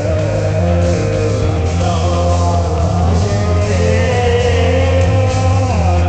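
Loud soundtrack music: a heavy, steady bass under a wavering, gliding melody line.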